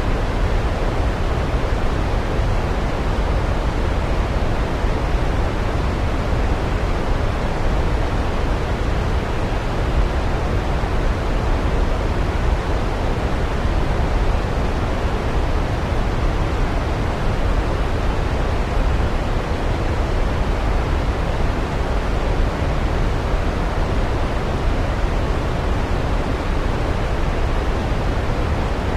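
Waterfall: water falling and splashing in a steady, unbroken rush, heaviest in the low end.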